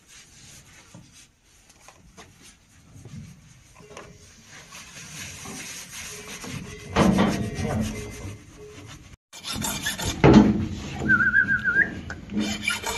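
Rough rubbing and scraping strokes, faint at first and much louder from about seven seconds in. A short wavering whistle-like tone comes near the end.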